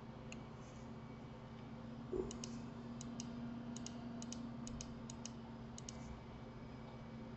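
Computer mouse clicks, mostly in quick press-and-release pairs, about a dozen over a few seconds, with a soft thump about two seconds in and a faint steady hum underneath.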